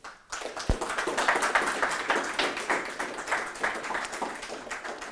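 Small audience applauding: many quick hand claps that swell within the first second and taper off toward the end.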